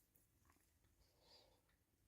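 Near silence: room tone with a few faint clicks and a soft rustle about a second and a half in.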